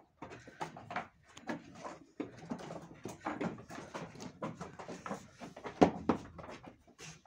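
Goats moving about in a pen: irregular knocks, scuffs and rustling, with one sharp, loud knock about six seconds in.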